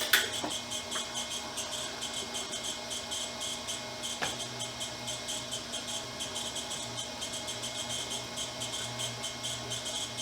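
Crickets chirping steadily in a rapid, even pulse, with one sharp click about four seconds in.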